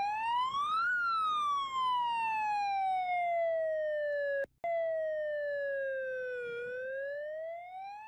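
Electronic wailing siren tone of a fan-made Portugal (ALT) EAS alarm: a single tone that rises over about a second, falls slowly for about five seconds, then starts rising again. It cuts out briefly about halfway through.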